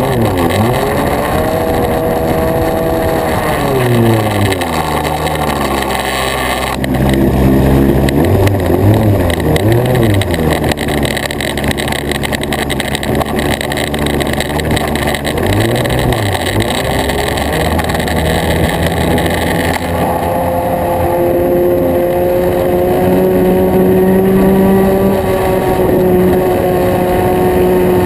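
Nitro glow engine of a radio-controlled plane running in flight, heard from a camera mounted on the plane. Its pitch rises and falls with the throttle through the first two-thirds, then holds steadier and higher near the end.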